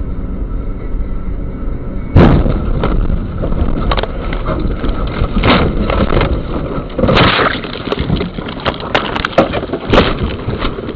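Car crash heard from inside a car through its dashcam: steady road and engine noise, then a loud impact about two seconds in, followed by a long run of irregular bangs and crunches for several more seconds as the car is thrown about, tapering off near the end.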